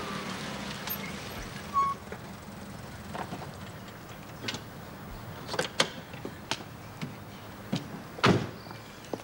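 Car coming to a stop, its engine dying away, then a string of clicks and knocks from the car's door and bodywork, ending near the close with a heavier car-door slam.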